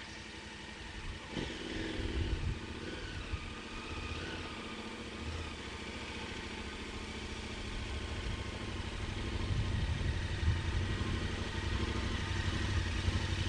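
A KTM adventure motorcycle's engine approaching, growing steadily louder as it nears, its note rising and falling a few times in the first seconds.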